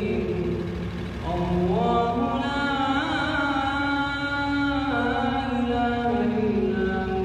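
A man singing a slow Arabic nasheed-style chant, holding long drawn-out notes with slow melismatic turns in pitch.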